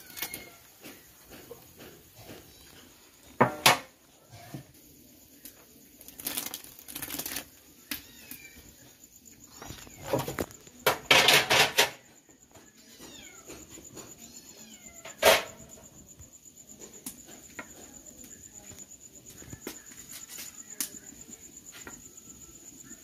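Scattered knocks and clatters, the loudest about a third of the way in, a burst just before halfway and another just past it. A steady high insect trill sets in about halfway and runs on.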